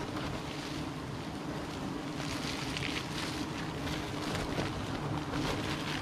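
Wild honeybees buzzing around their freshly cut, smoked nest: a steady low hum under a light hiss, with faint rustling.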